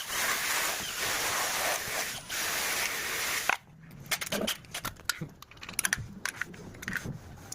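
Cutting machine with a vacuum cleaner attachment running as a steady hiss, which cuts off suddenly about three and a half seconds in. Scattered clicks and knocks follow.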